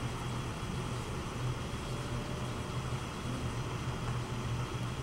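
Electric pottery wheel running at a steady speed, a continuous low motor hum, while wet clay is thrown into a tall pitcher.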